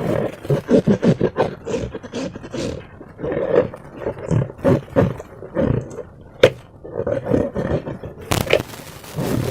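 Thick slime squelching in irregular bursts as it is stretched and pulled, with one sharp snap about six and a half seconds in.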